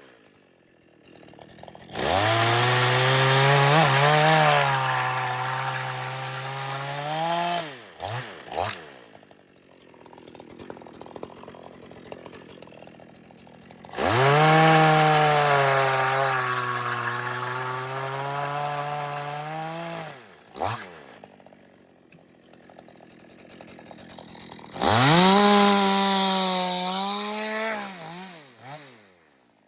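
Two-stroke chainsaw revved up to full throttle and held there three times for several seconds each, the engine note steady as it cuts through wood. Between the cuts it drops back to a quiet idle, with quick throttle blips.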